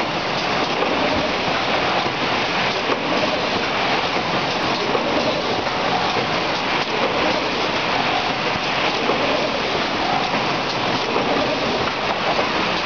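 Industrial cutting machine running, a steady dense hiss with no clear rhythm or pitch.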